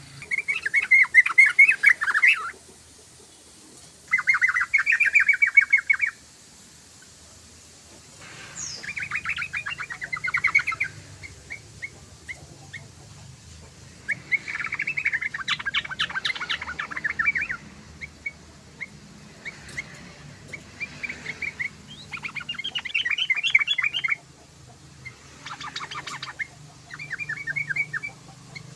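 Yellow-vented bulbul (trucukan) singing in repeated bursts of rapid, bubbly chattering notes, each burst about two seconds long, with short single notes in the gaps between them.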